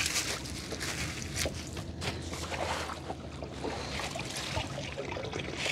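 Water splashing and dripping with scattered light knocks as a gill net is hauled by hand into a small boat, over a low steady hum.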